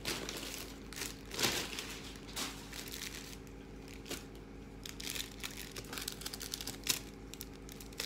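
Newspaper wrapping and small plastic plant bags rustling and crinkling in irregular bursts as aquarium plants are unwrapped by hand.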